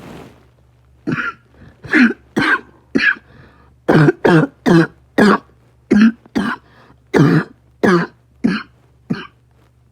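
A person coughing repeatedly: about fourteen short, sharp coughs in irregular succession, some in quick pairs, stopping about a second before the end.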